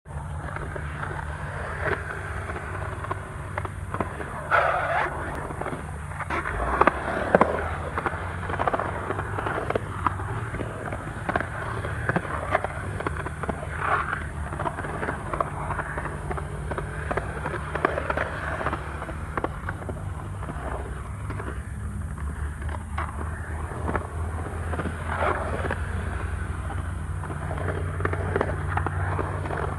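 Skateboard wheels rolling over a concrete skatepark bowl: a steady low rumble, broken by occasional sharp clacks and knocks from the board.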